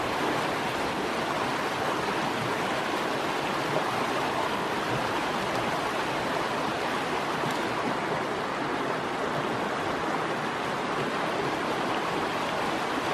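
Steady rushing of a mountain creek, an even hiss-like flow of water.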